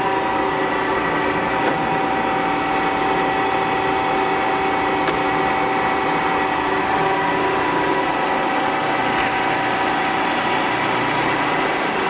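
Warner & Swasey No. 3 turret lathe running under power, its spindle and geared headstock turning at a constant speed with a steady whine of several tones.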